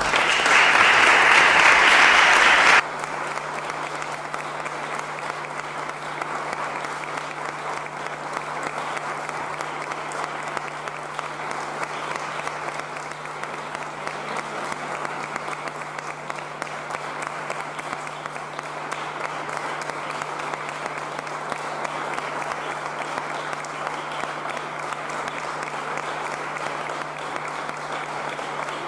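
Sustained applause from a roomful of people clapping. It is loudest for the first three seconds, then drops suddenly and goes on at a steady lower level, with a faint steady low hum underneath.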